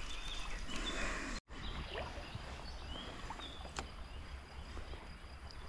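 Faint riverside ambience: low water noise with a few short, high chirps and light ticks, cut off completely for an instant about a second and a half in.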